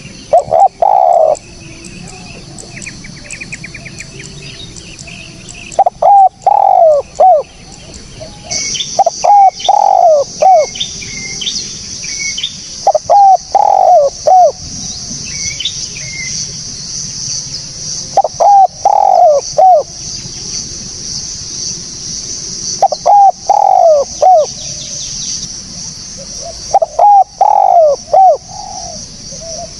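Spotted dove (tekukur) cooing: a phrase of three or four falling notes, repeated about every four to five seconds. Small birds chirp faintly in the background, and a steady high-pitched hiss comes in about eight seconds in.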